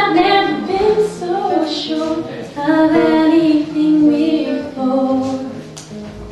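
A woman singing a slow song, accompanying herself on a classical guitar. Her held notes lie over the guitar, and the singing fades off in the last second.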